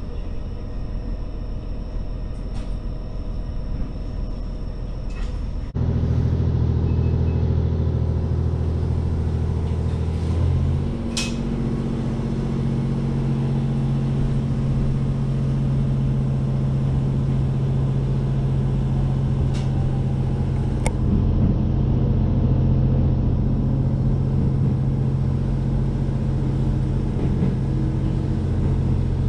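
Onboard sound of a JR Hokkaido H100 diesel-electric railcar. At first its diesel engine-generator runs quietly at a standstill. About six seconds in the level jumps to a louder, steady engine drone as the train pulls away, and about ten seconds in the drone steps to a new pitch. A faint rising whine and a few sharp clicks can be heard over it.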